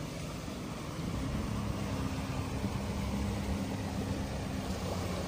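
Single-deck bus engine running steadily as the bus drives through deep floodwater, with water rushing and splashing around its wheels and sides. Louder from about a second in.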